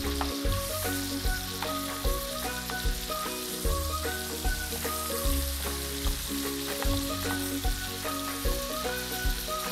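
Pepper-crusted beef steaks sizzling in hot butter in a frying pan as they are turned over, under background music with held notes and a repeating bass line.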